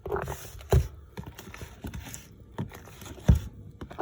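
A fork stirring cake batter in a bowl: irregular clicks and knocks of the fork against the bowl over a soft scraping, the loudest knock about three seconds in.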